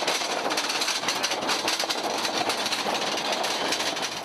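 Rattling clatter of lion dance equipment being moved across asphalt: a dense, continuous run of rapid knocks and rattles that drops away near the end.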